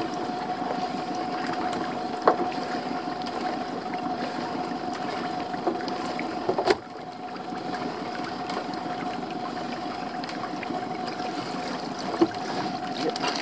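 Small boat's motor running steadily with a constant tone, while a rope is hauled in by hand. A few sharp knocks come through, about a third of the way in, halfway, and near the end.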